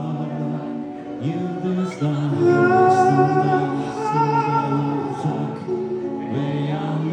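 A song with a voice singing long held notes over the music.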